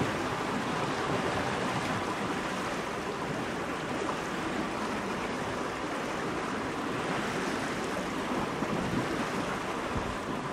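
Steady rush of lake water along the hull of a moving steam launch, mixed with wind on the microphone.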